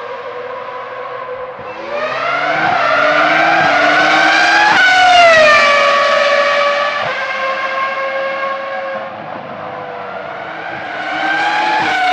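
Ferrari F2002 Formula 1 car's V10 engine at high revs, climbing in pitch with a couple of quick gear changes as it approaches, then dropping sharply in pitch as it passes about five seconds in and running on lower as it pulls away. It fades, then rises and drops again in another pass near the end.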